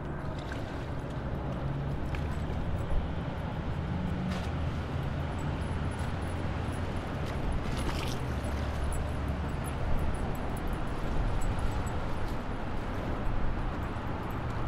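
Steady rushing of the MSC World Europa's foaming stern wake as the cruise ship runs at speed, with a deep low rumble beneath it.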